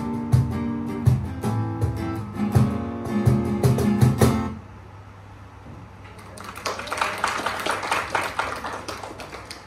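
Strummed acoustic guitar with cajon beats playing the last bars of a song, ending on a final chord about four and a half seconds in. About two seconds later a small audience claps, fading away over the next few seconds.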